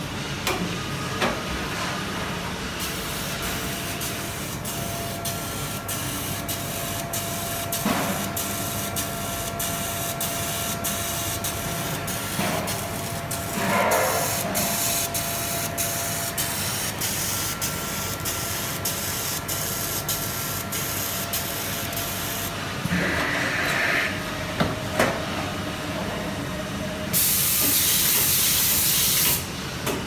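Dr. Fritsch laser welding machine welding diamond segments onto a saw blade's steel centre: a steady run of sharp ticks, about two a second, over a faint machine hum, with a few louder knocks. Near the end a loud hiss of air lasts a couple of seconds.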